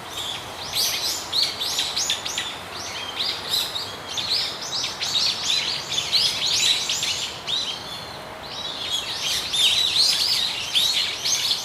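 A chorus of small birds chirping rapidly, many short, high-pitched calls overlapping, with a brief lull a little past the middle before it picks up again.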